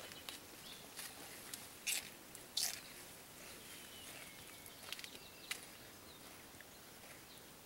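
Mountain gorilla biting and chewing celery stalks: a handful of short, sharp crunches, the loudest about two and two and a half seconds in, a few more around five seconds.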